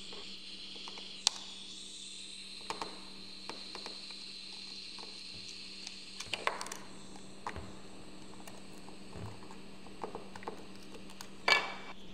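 Butane soldering iron (Weller Portasol) hissing steadily as a diode is desoldered from a circuit board, with a few light clicks of the iron tip and metal tweezers against the board; the sharpest click comes near the end. A faint steady hum runs underneath.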